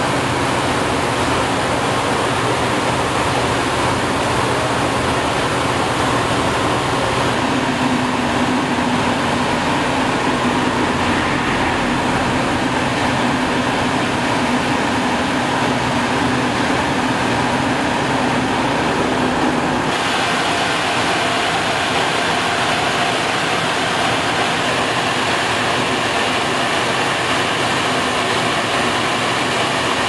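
XCMG cold-recycling machine at work: its diesel engine running under load while the rotor mills up the old road surface, a steady heavy machine noise. The tone changes abruptly about seven seconds in and again about twenty seconds in.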